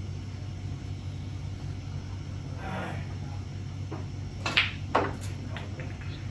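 Snooker shot: two sharp clicks about half a second apart, the cue striking the cue ball and the cue ball hitting an object ball, followed by a few lighter ball knocks, over a steady low hum.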